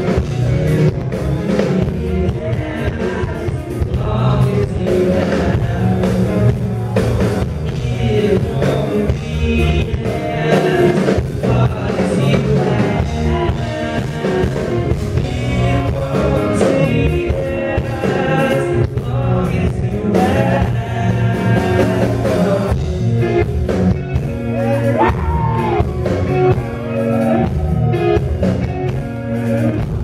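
Live rock band playing loudly, with a singer's voice over drums, bass and guitars.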